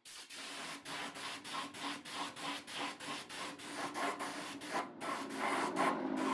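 Sandpaper rubbing on wood in quick, even back-and-forth hand strokes, a little under three a second.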